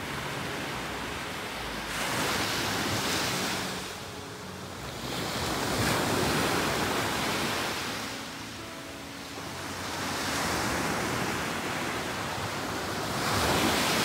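Waves breaking and washing up a sandy beach, the surf swelling and fading about four times, once every three to four seconds.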